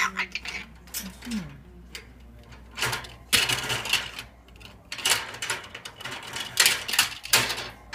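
Blue-eyed cockatoo working plastic toys with its beak, rattling and knocking them against the wire floor grate of its metal cage: a run of clattering clicks, growing into louder bursts from about three seconds in.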